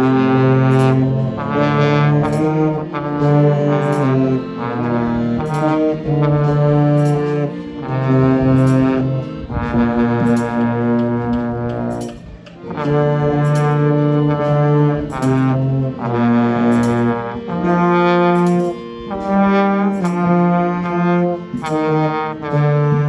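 Brass music led by trombone, playing a melody in held notes grouped into short phrases with brief breaks between them.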